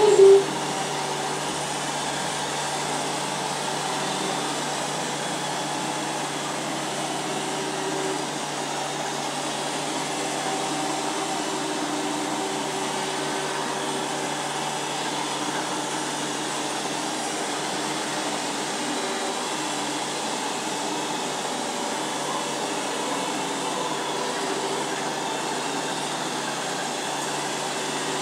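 Robot vacuum cleaner running steadily, its motor and brushes giving an even whirring noise with a faint wavering hum. A brief louder sound right at the start.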